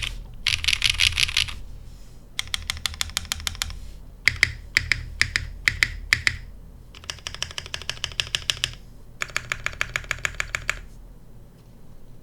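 Custom TGR x Monokei 910 ME mechanical keyboard with a top-mounted polycarbonate plate, lubed BCP frankenswitches (Cherry top housing, Cream stem, Gateron bottom housing) and GMK keycaps, being typed on. It comes in several runs of fast, even keystrokes, with a stretch of slower, separate key presses in the middle.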